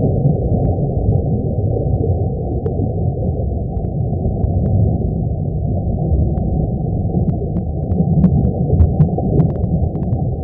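Deep, steady rumbling drone with faint scattered crackles that grow more frequent in the last few seconds: a sound-designed rumble for a space scene.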